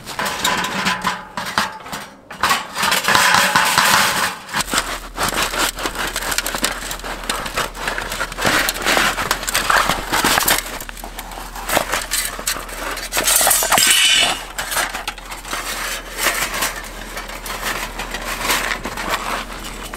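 Thin metal panels of a folding Ovill fire pit clattering and clinking against each other as it is collapsed and pushed into its fabric carry case.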